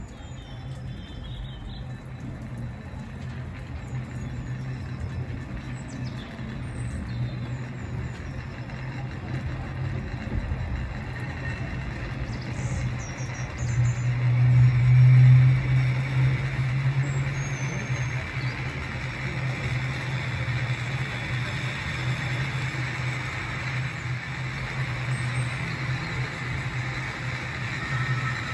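Water-powered funicular railway car running on its track: a steady low rumble and hum that swells to its loudest about halfway through, with a few faint high squeaks.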